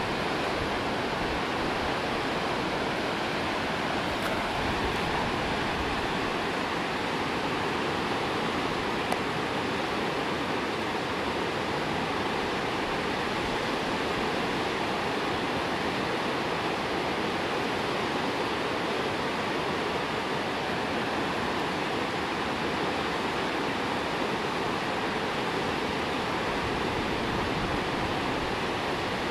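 Steady rush of whitewater rapids: a continuous, even roar of fast water over rocks.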